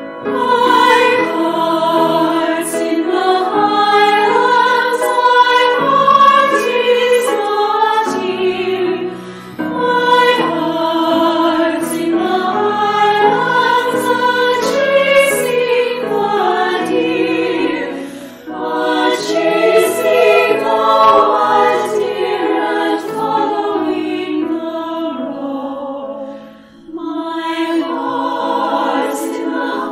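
Choral music: several voices singing together in long phrases, with short breaks between phrases about every eight to nine seconds.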